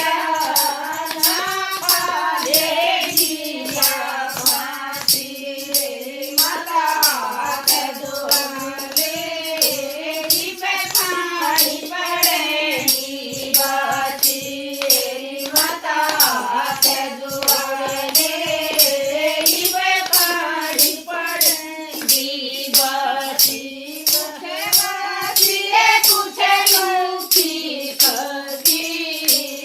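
Haryanvi devotional bhajan sung by several voices together, the melody wavering with ornaments, over a steady jingling percussion beat.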